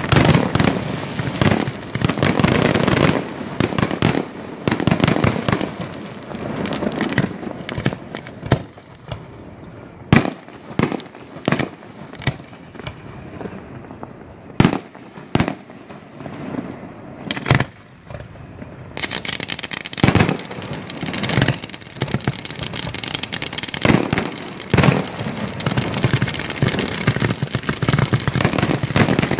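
Aerial firework shells bursting in rapid volleys of sharp bangs with crackle. The bangs thin out to single reports partway through, then come thick and fast again from about nineteen seconds in.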